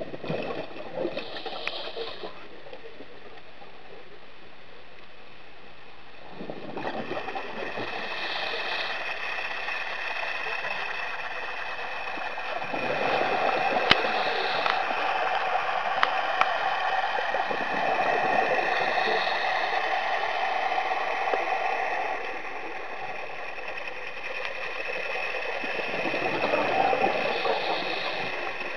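Scuba diver breathing through a regulator underwater: a short hiss on each breath in, then long rushing, bubbling exhalations, a breath every eight seconds or so. One sharp click about halfway through.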